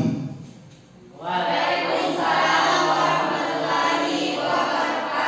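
A class of students answering the teacher's closing Islamic greeting in unison, many young voices chanting the reply together. It starts about a second in, after a short pause.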